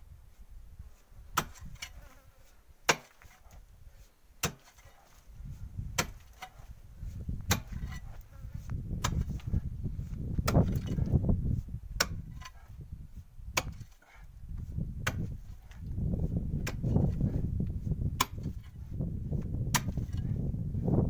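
Steel pickaxe striking hard, compacted soil and stones at the bottom of a hand-dug well, in steady sharp blows a little over one a second. An uneven low rumble rises under the blows from about a third of the way in.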